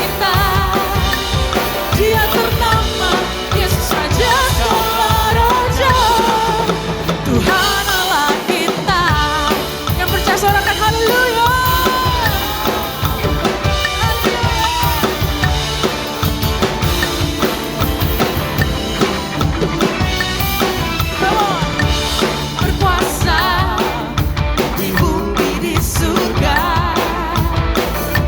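A pop-rock song with a singer, and a drum kit played along to it at 151 beats per minute: steady kick, snare and rimshot strokes under the vocal melody. The low end drops out briefly about eight seconds in.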